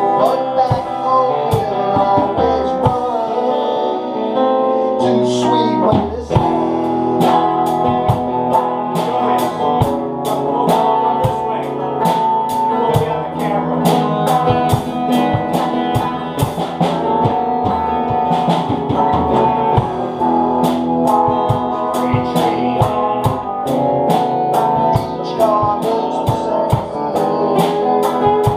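Guitar-led band music with a steady drum beat.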